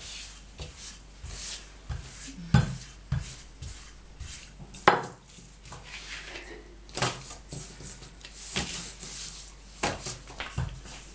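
Wooden rolling pin rolling out dough on a table: repeated rubbing swishes with irregular wooden knocks as the pin is set down and picked up, the sharpest about five seconds in.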